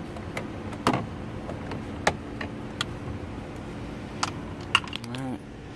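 Irregular sharp clicks and taps of a hand tool and plastic dashboard parts being handled under a car's dash, about ten in all, over a steady low hum, with a short creak a little past five seconds.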